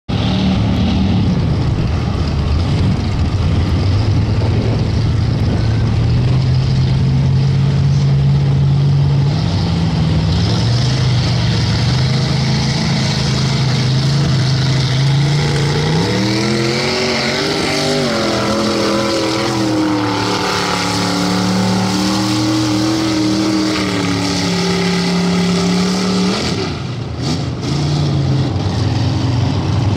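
Lifted mud-bog pickup's engine working through a mud pit. It runs at low revs that creep upward, then about halfway through the revs climb sharply and stay high for about ten seconds before dropping off near the end.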